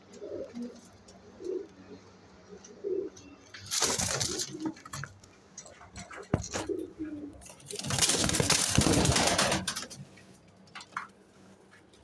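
Pigeons cooing in short, low, repeated phrases. Two loud bursts of rustling noise come about four seconds in and again from about eight to ten seconds in.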